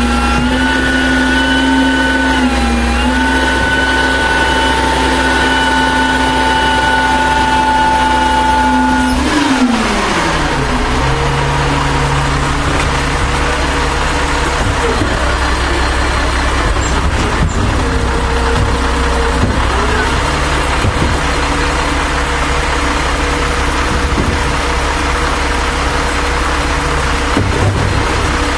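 Diesel engine of a 1996 Volvo WX64 garbage truck held at high revs for about nine seconds, then the revs fall away smoothly and it runs on steadily at a much lower speed.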